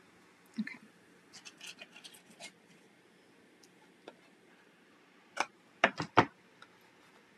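Scissors snipping four times, the last three in quick succession, trimming the red ribbon of a tied bow. Light rustling of the ribbon comes before the cuts.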